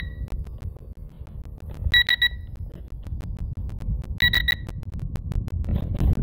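An electronic beeper sounds quick groups of three short high-pitched beeps, twice, about two seconds apart, over a steady low rumble of wind on the microphone.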